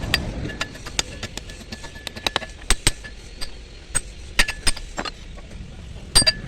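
Irregular sharp metallic clicks and clinks, several ringing briefly, over a low steady rumble.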